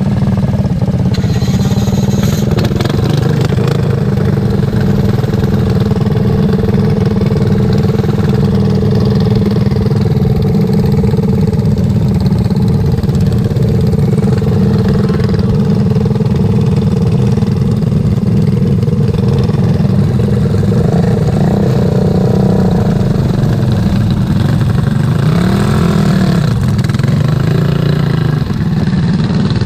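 Racing lawn mower engine running hard, a loud steady drone, with the pitch swinging up and down several times in the last part as the throttle comes off and back on.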